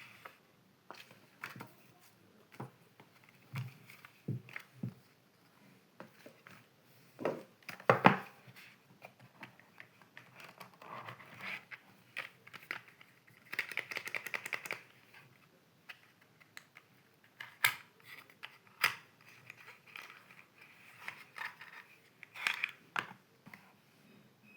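Packaging being handled and opened: irregular clicks, taps, scratches and crinkling of cardboard and plastic. There is a louder knock about a third of the way in and a stretch of rapid crackling about halfway through.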